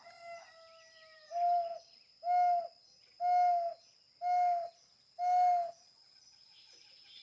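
Handmade bird-call whistle imitating a ground dove (rolinha) blown by mouth: a soft long note first, then five short cooing hoots about a second apart.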